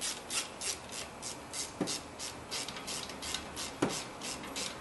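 Ratchet wrench tightening brake caliper bolts, its pawl rasping on each back-swing in an even run of about three to four strokes a second, with a couple of duller knocks along the way.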